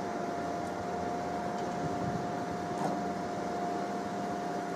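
Truck-mounted knuckle-boom crane on a Scania truck working a lift: a steady mechanical hum with a constant high-pitched whine.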